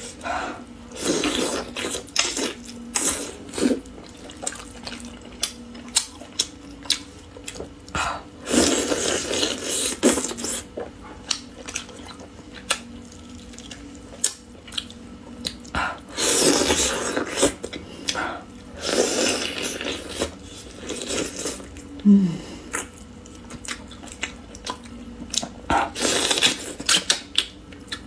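Close-miked wet eating sounds from a sauce-braised duck leg held in the hands: many short lip smacks and chewing clicks, with several longer wet sucking and slurping stretches as meat and sauce are pulled off the bone.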